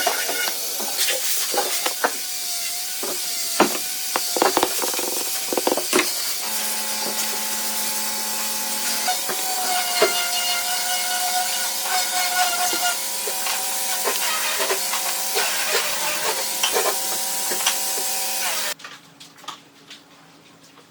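A power tool's motor running on wood, with a steady whine and hiss and repeated knocks of wood being handled. Its pitch wavers early on as it meets load, and it cuts off suddenly near the end.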